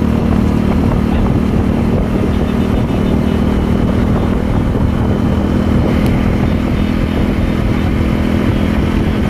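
Motorcycle engine running steadily at road speed, a constant drone with rumbling road and wind noise beneath it.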